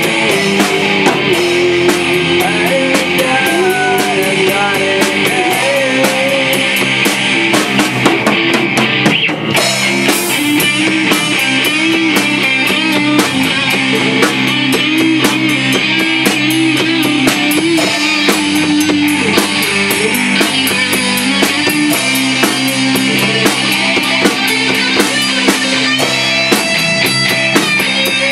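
A live rock band plays loudly and steadily: electric guitars over a Tama drum kit keeping a driving beat.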